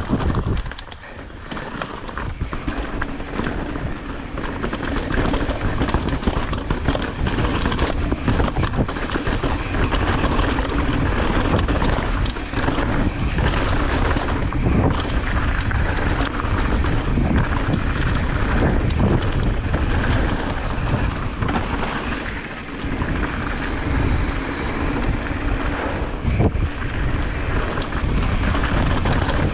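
Heavy wind buffeting the microphone, with a constant low rumble and many small knocks and rattles throughout; the level dips briefly about a second in and again around 22 seconds.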